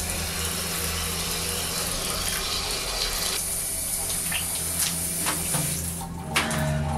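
Water rushing from a shower hose and splashing in a basin, with a low steady drone beneath it. The rush thins out about halfway through, a few sharp knocks follow, and the water stops near the end.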